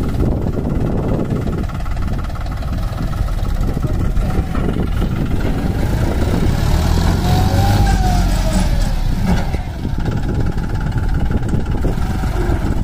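John Deere 5204 tractor's diesel engine running as it pulls forward with its tipping trailer raised, emptying a load of soil. The engine grows louder for a few seconds about midway, then settles back.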